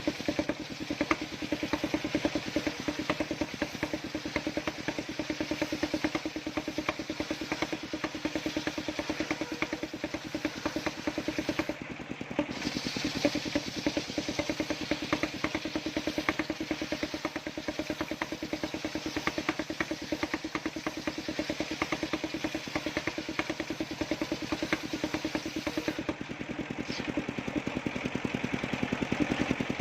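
Engine of a homemade circular-saw sawmill running steadily with a rapid firing beat, dipping briefly about twelve seconds in.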